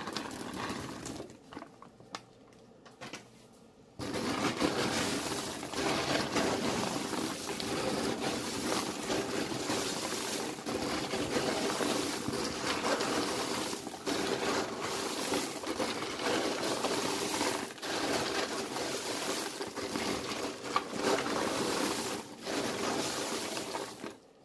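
Gloved hands tossing and stirring baked, sugar-coated popcorn in a plastic tub. From about four seconds in there is a dense, continuous crunchy rustle and clatter of kernels, stopping just before the end. Before that there are a few lighter crinkles as dried cherries are shaken out of a plastic bag.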